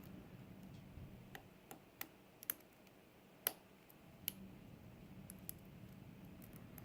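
Faint, irregular small clicks of a lock pick and tension wrench working the pin stacks of a GEGE euro cylinder, about nine ticks with the loudest about three and a half seconds in.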